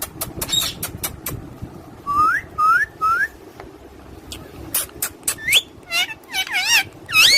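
Pet parrots whistling: three short rising whistles about two seconds in, then a quicker run of wavering, warbling whistles near the end, with sharp clicks between.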